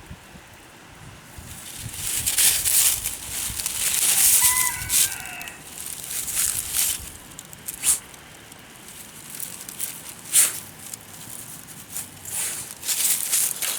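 A terrier-type dog rustling and crackling through dry ground litter as it searches a scent trail, with a few sharp snaps. A brief, high-pitched call that falls at the end is heard about four and a half seconds in.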